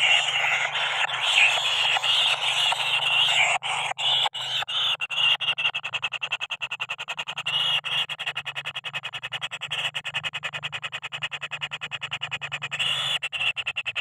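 Kingfisher nestlings begging in their nest burrow. They give a dense, harsh rasping at first, which settles about five seconds in into a fast, evenly pulsed chatter.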